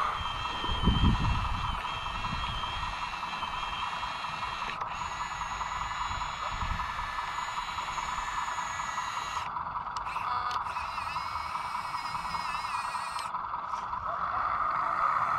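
RC CAT 906 wheel loader's hydraulic pump whining steadily while it works its hydraulic attachment, with a few low knocks about a second in.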